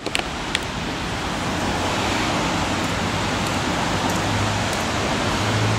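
Steady rushing outdoor noise, with a couple of short clicks at the start and a low hum coming up near the end.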